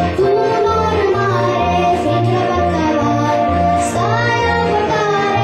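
A girl singing a melody into a handheld microphone over musical accompaniment with a repeating bass line.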